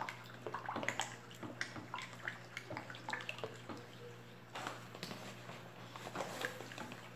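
Plastic spoon stirring a liquid soap batter of oil and caustic soda solution in a plastic bowl: liquid swishing, with irregular light clicks and scrapes of the spoon against the bowl.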